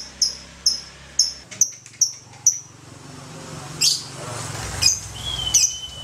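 Fischer's lovebird chirping in a fast series of sharp, high notes, about four a second, slowing and stopping about two and a half seconds in: its ngekek song. A few scattered calls and a steady high whistle follow near the end.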